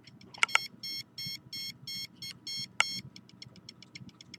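A handheld signal detector beeping in a regular high-pitched pattern, longer beeps about three a second that change about three seconds in to a rapid run of short ticks, with a few sharp clicks from handling. It is sounding as she holds it against her body, which she takes for the detection of signals from her stomach.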